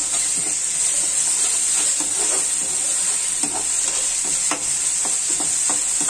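Onions and ginger-garlic paste frying in oil in a metal kadhai, sizzling steadily, while a spatula stirs and scrapes against the pan in irregular strokes.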